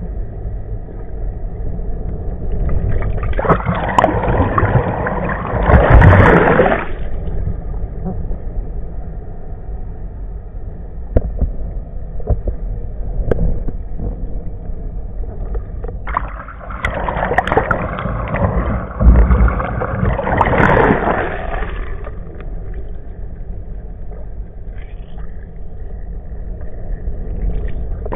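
Water rushing past an underwater camera on a towed nautboard, heard as a muffled, steady low rumble. Two louder rushing surges come a few seconds in and again just past the middle.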